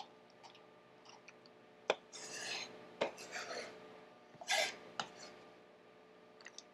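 Rasping scrapes of a chef's knife moving chopped onion from a cutting board into a small plastic container. A few sharp knife taps fall among the scrapes.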